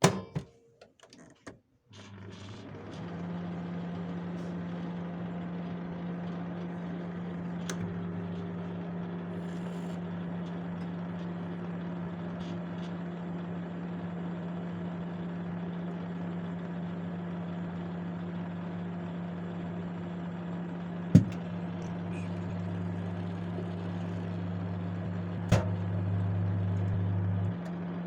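Microwave oven clicking shut and starting up, then running with a steady electrical hum. Two sharp cracks break in, about three-quarters of the way through and again a few seconds later, and the deepest part of the hum drops away near the end.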